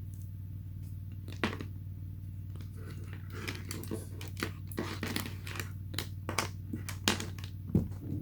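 Handling of a USB charging cable and the power bank: a scattering of small plastic clicks and rustles that gets busier about three seconds in, over a steady low electrical hum.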